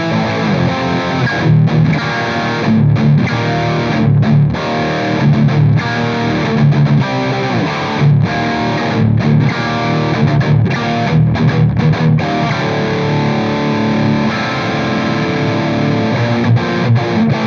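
Electric guitar played through a Soldano SLO high-gain distortion pedal set with the mids scooped, the Deep switch on and the presence turned up. It plays a heavily distorted riff with frequent short stops between phrases.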